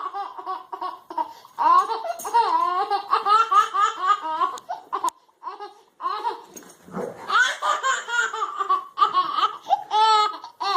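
A baby laughing hard in rapid, high-pitched bursts of belly laughter, pausing briefly about six seconds in and then laughing again.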